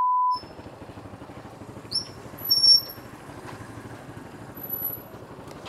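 A steady electronic beep cuts off just after the start. Then a small motorbike's engine runs at low speed, heard from the bike, with a couple of short high-pitched squeaks about two seconds in, the loudest sounds here.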